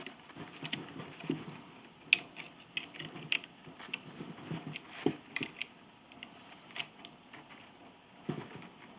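Irregular small clicks and taps of the bolts of a Swage-It hand swaging tool being turned with a wrench, tightening down evenly to crimp a clip onto 1/8-inch steel cable.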